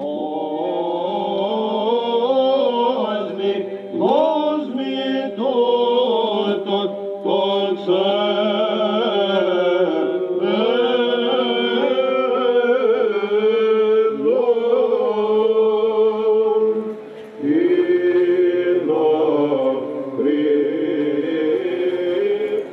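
Byzantine chant: voices singing a slow, ornamented melody over a held drone note (ison), with a brief break about three-quarters of the way through.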